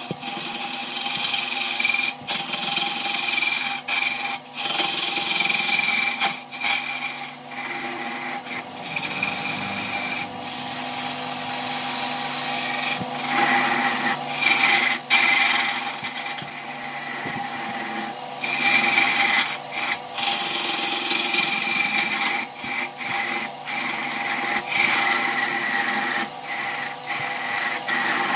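Wood lathe spinning a log while a hand-held gouge cuts into it: a steady motor hum under a rough shaving noise that swells and eases as the tool is pressed in and backed off, with brief drops in level.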